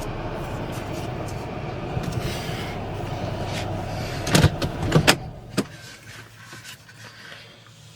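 A car running with a steady low rumble, then sharp knocks about four and five seconds in. After them the rumble drops away to a quieter background with light ticks.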